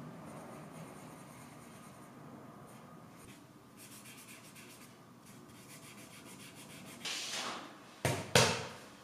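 Graphite pencil scratching faintly on drawing paper, then a fingertip rubbing the shading. Near the end there is a short louder hiss and two sharp knocks.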